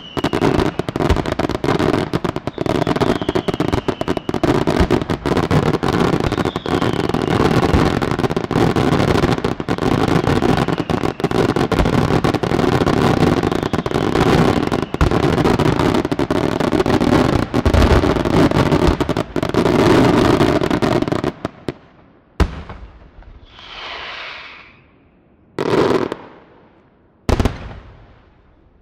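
Fireworks display: a dense, continuous barrage of aerial shell bursts with rapid bangs overlapping for about twenty seconds. The barrage then breaks off abruptly, leaving a few single sharp bangs spaced a couple of seconds apart.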